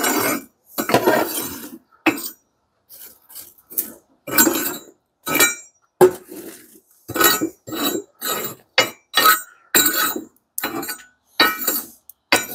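Long-handled metal coal shovel scraping across the stainless steel firebox floor of a Primal Grill PG-LF40 charcoal grill and pushing lit charcoal to the edges, with lumps clinking against the steel. It comes as a series of short, separate scrapes and clinks, quickening to about two a second in the second half.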